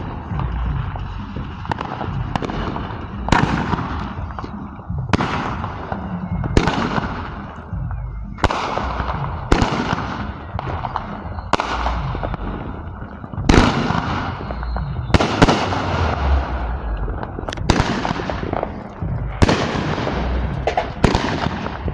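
A Cosmic Carnival firework going off: a long volley of sharp bangs, about one every one to two seconds, each trailing off in a fading crackle.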